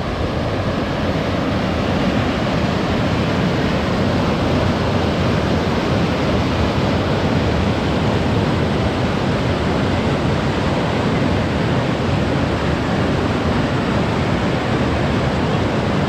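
A rocky mountain stream cascading over boulders: a loud, steady rush of white water, growing a little louder in the first couple of seconds and then holding even.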